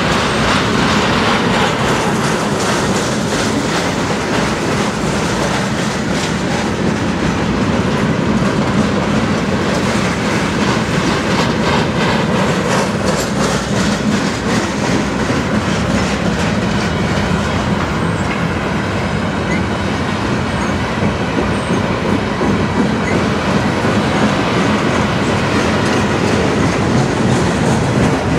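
Freight train of loaded flatcars rolling steadily past close by: a continuous rumble of steel wheels on the rails, with repeated clacks as the wheels pass over the track.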